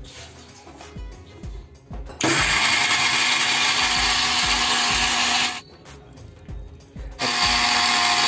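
Lazer electric mixer grinder running in two bursts, a run of about three seconds and then a second run starting near the end, grinding soaked mustard seeds, cumin and garlic into a wet paste. Each run starts and stops abruptly at a steady loud whir.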